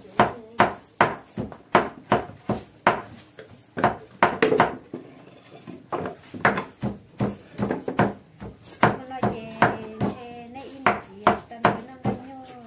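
Heavy cleaver mincing raw meat by hand on a thick wooden chopping block: a steady run of sharp knocks, about two to three a second, with a short lull about five seconds in.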